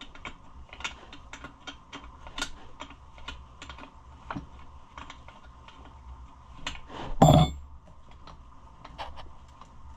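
Irregular small clicks and taps of Homelite Super XL chainsaw parts and lines being handled and fitted during reassembly, with one louder clunk about seven seconds in.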